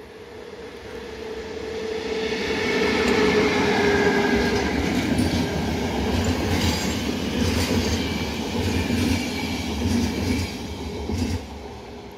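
Electric-hauled passenger train passing on the track, growing louder over the first few seconds as it approaches, then its coaches rolling by with a string of wheel clicks over the rail joints and thin high wheel squeal at times. It drops away about eleven seconds in as the train moves off.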